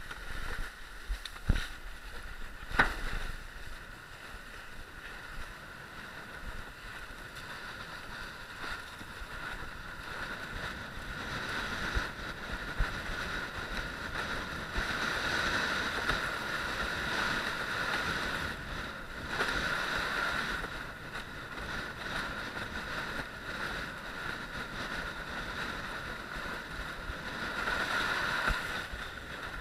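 Water rushing under a windsurf longboard sailing over choppy water, mixed with wind on the microphone, in a steady noisy rush that swells louder about halfway through and again near the end. Two sharp knocks sound in the first three seconds.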